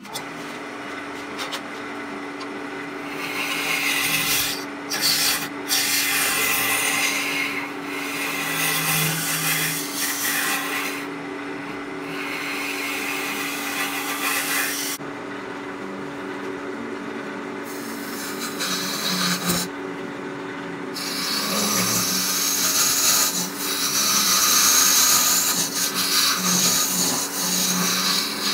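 Wood lathe running with a steady motor hum while a turning tool cuts the face of a spinning oak bowl blank. The scraping cut comes and goes in passes of a few seconds as the tool is pushed into the wood and eased off, and in the gaps only the hum is heard.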